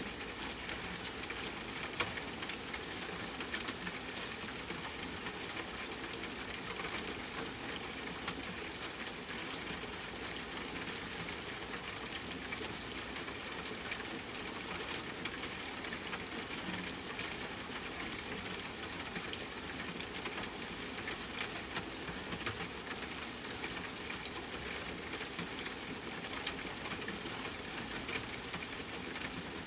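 Steady rain falling, an even hiss with many small drop clicks throughout.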